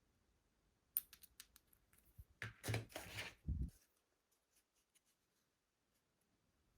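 Hands handling the mini fan and its packaging: a sharp click about a second in, a few light ticks, then about a second and a half of rustling and scraping with low knocks that stops abruptly.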